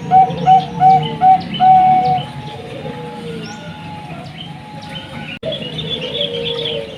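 Bangkok-type zebra dove (perkutut) cooing: a loud run of short, quickly repeated notes ending in a longer drawn note about two seconds in, then softer cooing. Small birds chirp high above it, and the sound drops out for an instant about five seconds in.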